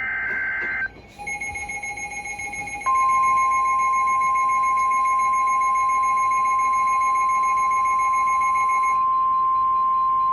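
The end of a warbling digital SAME data burst, then steady alarm tones. From about a second in a two-pitch alert tone sounds. From about three seconds the loud, steady single-pitch NOAA Weather Radio 1050 Hz warning alarm tone joins in, and it carries on after the two-pitch tone stops near the end.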